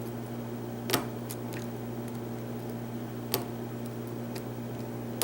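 Small sharp metallic clicks and fainter ticks of a hook pick working the pins of a pin-tumbler lock under tension, three clicks louder than the rest, over a steady low hum.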